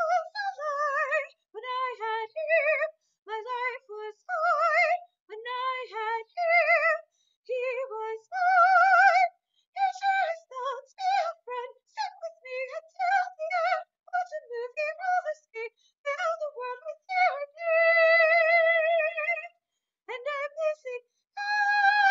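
A woman singing solo in a high soprano range into a microphone, unaccompanied, with vibrato on held notes. The longest notes come about nine seconds in, around eighteen seconds in, and near the end.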